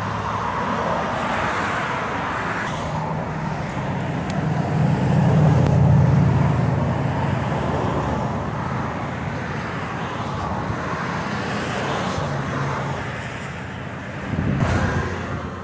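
A vehicle engine running steadily with a low hum, swelling louder near the middle and again briefly near the end.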